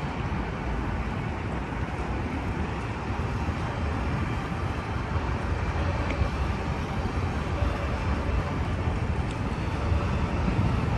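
Steady low rumble of city background noise, growing slightly louder.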